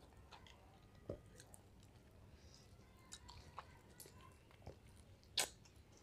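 Faint, wet mouth sounds of someone eating a ripe mango off the seed: scattered smacks and slurps, with a sharper smack about a second in and a louder one near the end.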